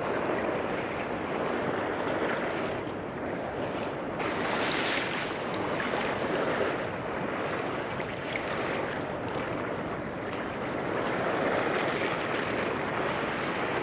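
Sea waves washing against a breakwater, with wind on the microphone: a steady rushing noise with one louder surge about four seconds in.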